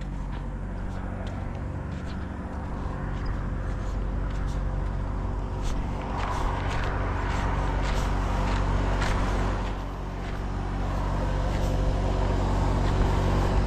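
Steady footsteps walking over a concrete path and driveway, over the steady low hum of a vehicle engine running.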